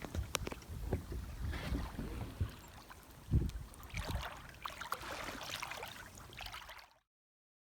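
Wind buffeting the microphone in uneven low thumps, with swells of water washing and lapping. The sound cuts off abruptly to silence about seven seconds in.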